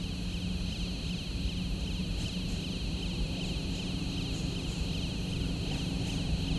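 A train approaching in the distance: a steady low hum that slowly grows louder, over a steady high-pitched whine.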